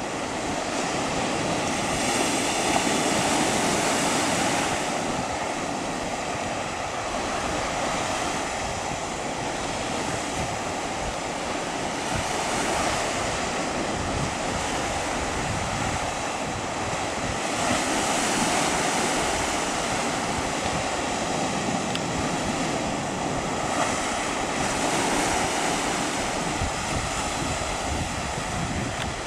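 Sea surf washing onto the beach and rocks, a steady rush that swells and eases several times, with wind buffeting the microphone.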